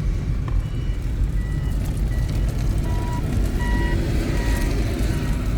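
Steady road rumble of a moving car, heard from inside the cabin. From about a second and a half in, a run of short electronic beeps sounds roughly every three-quarters of a second.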